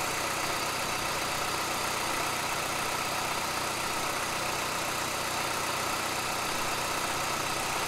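Hyundai Accent's 1.6-litre four-cylinder engine running steadily under the bonnet, an even, unchanging hum.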